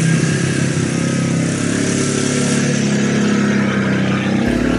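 Polaris Ranger 500 UTV's single-cylinder engine running steadily as the machine drives. The sound cuts off abruptly near the end.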